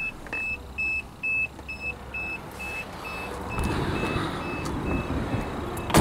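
1989 Toyota Land Cruiser's warning chime beeping steadily, about two high beeps a second, fading in the second half. Rustling handling noise rises under it from about halfway.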